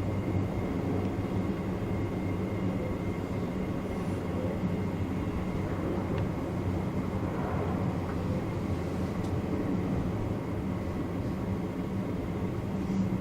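Electric train heard from inside the driver's cab: a steady low hum with rail and running noise and a faint, constant high tone.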